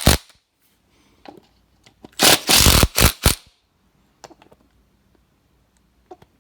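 Ratchet wrench clicking in one quick burst of about a second, tightening the closing wheel's halves together, followed by a single sharp click and a few faint ticks of tool handling.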